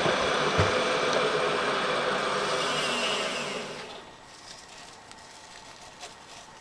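Milling machine running with a dense mechanical whir, then shut off a little under four seconds in and quickly spinning down, leaving a low hum.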